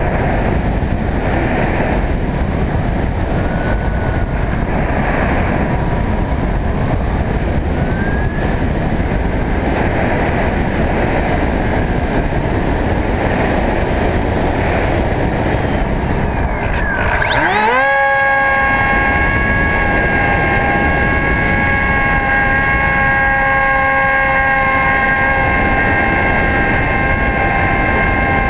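Wind rushing over a camera on the nose of a Hobbyking Bixler RC plane in flight, with the plane's electric motor in the background. About two-thirds of the way in, the motor throttles up: its whine rises quickly, then holds as a steady high whine under the wind.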